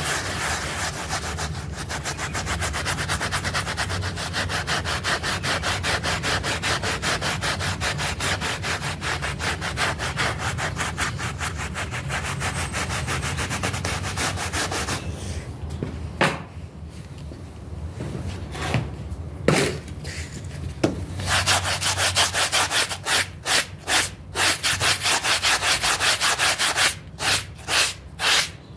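Stiff-bristled hand brush scrubbing a soapy shag rug in fast back-and-forth strokes. About halfway through the scrubbing stops for several seconds, broken by a few light knocks, then resumes in slower, separate strokes about two a second.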